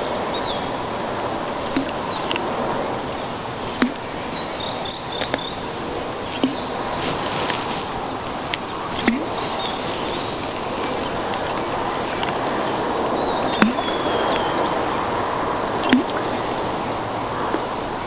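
Outdoor nature ambience: a steady noisy hiss with short, high bird chirps scattered through it and a few sharp ticks.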